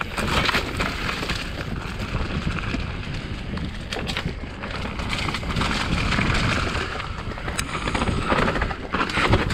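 Full-suspension Specialized Enduro mountain bike descending a loamy dirt trail: steady tyre noise and rumble over the ground, broken by many small knocks and rattles from the bike over bumps, with wind on the microphone.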